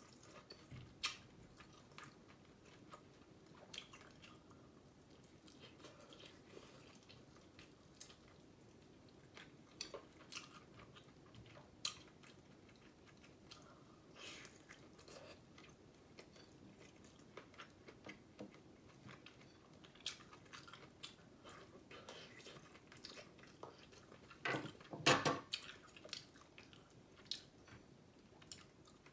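Close mouth sounds of a person chewing and gnawing meat off a beef bone, with scattered small clicks and smacks. A louder noisy burst lasting about a second comes near the end.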